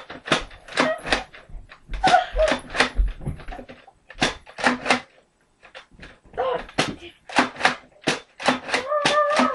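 Toy Nerf pump-action dart blaster with a drum magazine being pumped and fired again and again: a quick run of sharp plastic clacks, often in pairs or threes, with a short pause about five seconds in.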